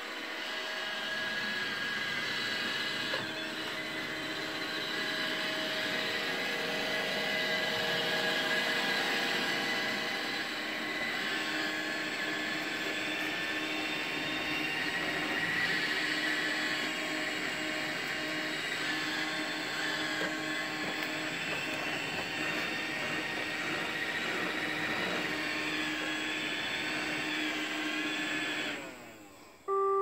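iRobot Roomba 675 robot vacuum running on carpet: a steady whir of the vacuum motor and brushes with a few held whining tones. About a second and a half before the end it winds down and stops as its weak battery gives out.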